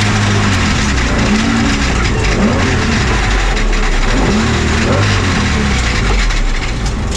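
Onboard sound inside the cockpit of the BMW M1 race car at speed, its straight-six engine loud with its pitch rising and falling in arcs over a rush of road and wind noise. This is the catastrophic engine failure that ends with the engine going up in an oil fire.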